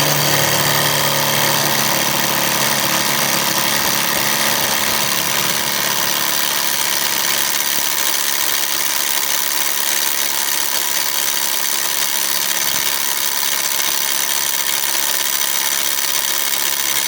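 Ryobi PSBIW25B compact impact wrench hammering steadily on a 1-1/2 inch nut to loosen it. The nut does not break loose.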